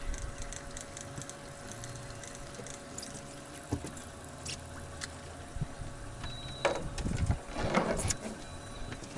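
Hooked bass splashing at the water's surface beside the boat, with a louder burst of splashing about seven seconds in. Light, quick ticking of a fishing reel as the fish is played, over a steady faint hum.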